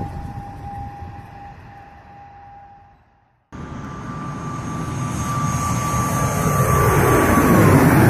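Jet airliner engines on landing approach. A steady whine over a low rumble fades to silence about three seconds in. After a brief gap a second pass starts abruptly and grows louder, its whine holding steady and then dropping in pitch as the plane goes by near the end.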